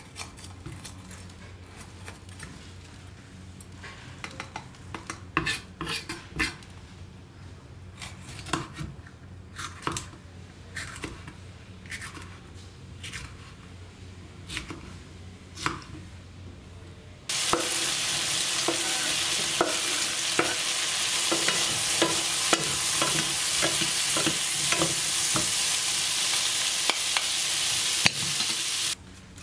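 Chef's knife cutting pointed red peppers into rings on a wooden board: a string of separate sharp chops. About halfway through, this gives way to a pan of mushrooms, onions and pepper rings frying loudly, a steady sizzle with small clicks as it is stirred, which stops just before the end.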